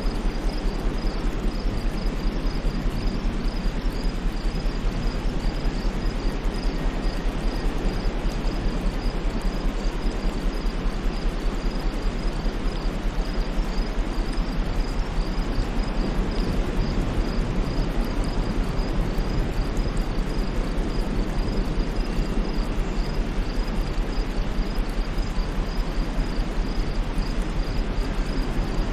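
Steady white noise, with an insect chirping high above it in a fast, even rhythm.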